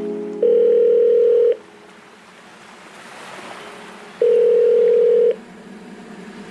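Telephone line tone: two long, steady beeps of about a second each, about four seconds apart, over a faint low hum.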